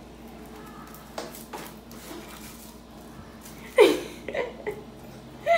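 A toddler's short wordless vocal sounds: a loud exclamation that falls in pitch about two-thirds of the way in, followed by a couple of brief ones. A few faint knocks come earlier.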